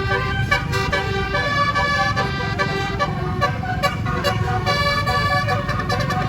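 Bus 'telolet' musical air horn (a 36-note Basuri horn) playing a tune note after note over the low running sound of the bus.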